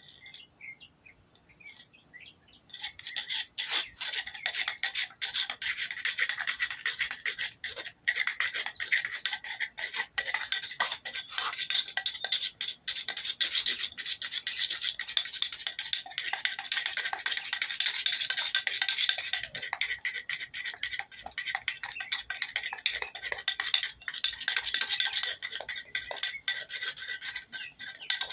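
Friction fire roll: a wooden board pushed rapidly back and forth over a cotton-and-ash tinder roll on concrete, giving a continuous scraping rasp that starts about three seconds in. The rolling friction heats the cotton toward smouldering.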